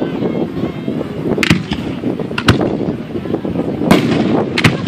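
Aerial firework shells bursting overhead: several sharp bangs, about a second apart with two close together near the end, over a continuous rumble of overlapping bursts.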